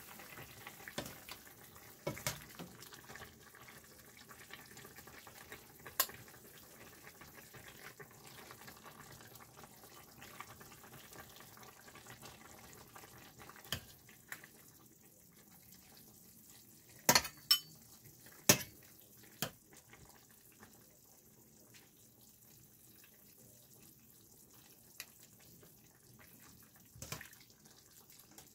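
Metal spoon clinking against a stainless steel pot and a bowl while soup is served, with broth splashing and dripping between the clinks. The clinks are sharp and scattered, loudest in a quick cluster about two-thirds of the way through.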